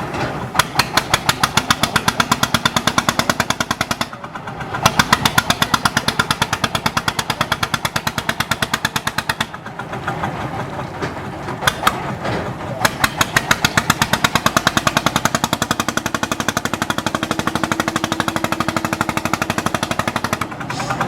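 A fishing boat's engine runs with a rapid, regular knocking beat, which dips briefly twice.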